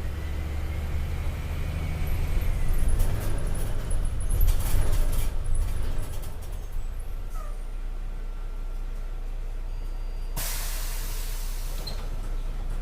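MAN D0836 six-cylinder diesel engine of a Volkswagen Volksbus 17.260 ODS bus chassis running, louder for a few seconds and then settling back to a low idle. Near the end, a loud burst of compressed-air hiss from the air brake system lasts about a second and a half.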